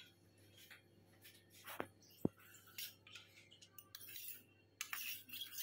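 Faint clinks and taps of kitchen utensils against dishes, with one sharper clink a little past two seconds in.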